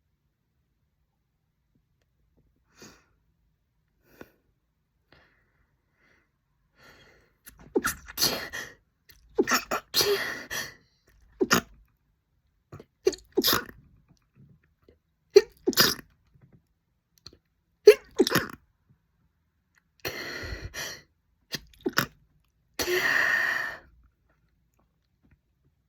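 A woman sneezing again and again in a fit, starting about seven seconds in: a run of sharp bursts, many in quick pairs, with a longer, drawn-out one near the end. A few faint clicks before the fit begins.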